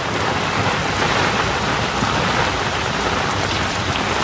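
Steady rain falling on a sailboat's deck and an inflatable dinghy.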